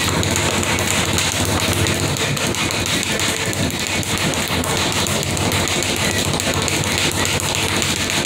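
Speed bag being punched in a fast, continuous rattling rhythm of rapid rebounds.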